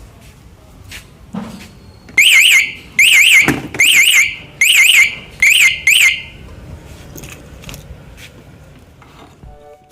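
Aftermarket motorcycle security alarm siren sounding six short, loud bursts of fast warbling chirps, starting about two seconds in and stopping about six seconds in.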